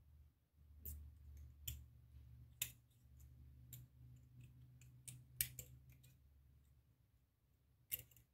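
Faint, scattered metallic clicks of small parts and tools as a pin tumbler lock is taken apart, its pin springs being worked out of the chambers, over a low steady hum.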